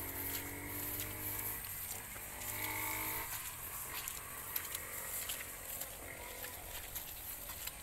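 A long, drawn-out farm-animal call ends about a second and a half in, followed by a shorter, fainter call. Soft footfalls in wet grass and mud follow.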